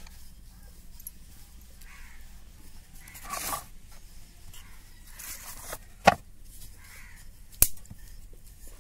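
Wooden rolling pin rolling a puran poli thin on a floured wooden board: two soft scraping swishes, then two sharp knocks about a second and a half apart.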